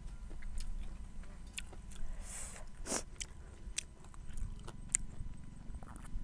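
Close-up eating sounds: a person chewing and biting into food, with scattered crisp crunches, one sharper crunch about three seconds in, over a low steady rumble.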